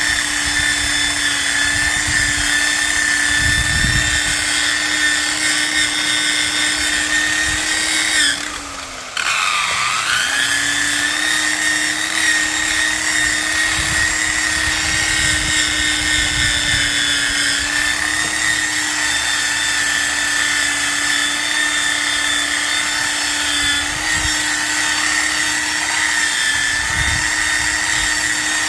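Variable-speed electric buffer running at speed setting 3, polishing compound into a plastic fog light lens, with a steady motor whine and uneven low rumbles as the pad works the lens. About eight seconds in the motor winds down and stops briefly, then spins back up to speed.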